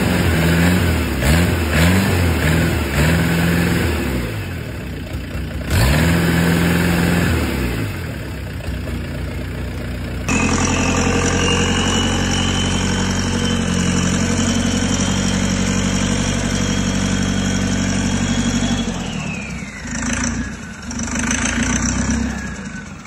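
Small four-cylinder diesel engine on a test stand being revved up and down several times. Then a larger common-rail diesel engine runs steadily with a high whine, which slides down in pitch near the end as the engine is blipped twice and dies away.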